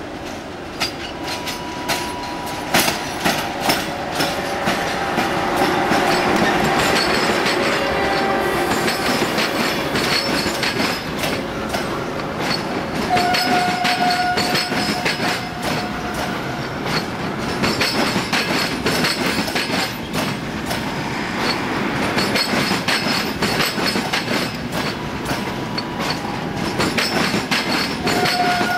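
ETR 500 high-speed electric trainset rolling slowly into the platform, its wheels clicking over the rail joints and points. A steady high tone sounds twice, around 13 seconds in and again at the end.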